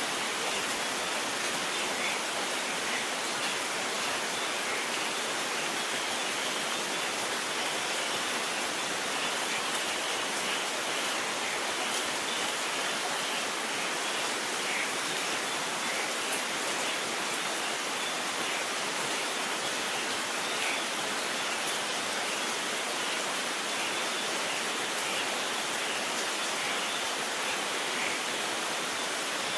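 Steady rain falling, an even hiss with no thunder in it.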